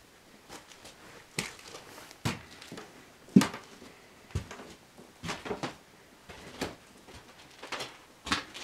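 Irregular footsteps and knocks on a bare floor in a small empty room, about a dozen uneven thuds and clicks, the loudest about three and a half seconds in.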